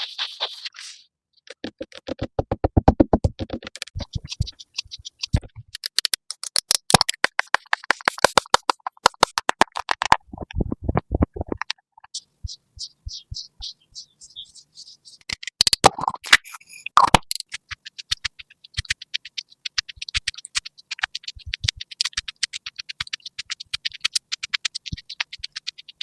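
Rapid tapping and scratching sounds, many short clicks a second, coming in several runs with a short pause about halfway through.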